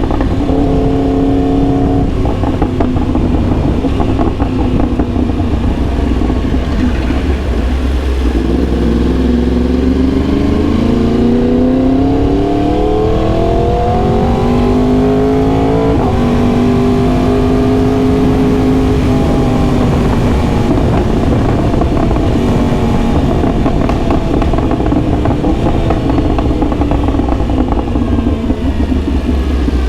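Yamaha YZF-R1M's 998 cc crossplane inline-four engine on the move. It holds a fairly steady note, then pulls up in a long rising climb from about eight seconds in. Its pitch steps down suddenly at about sixteen seconds as it changes up a gear, then it falls slowly as it eases off.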